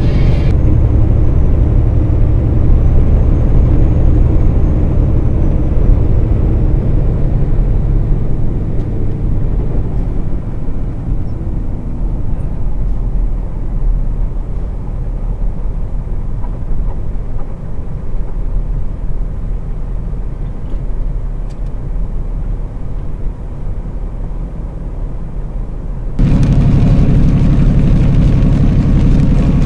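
Steady low rumble of a truck's engine and road noise heard from inside the cab on a dashcam. Near the end it cuts suddenly to a louder, brighter stretch of the same kind of cab noise.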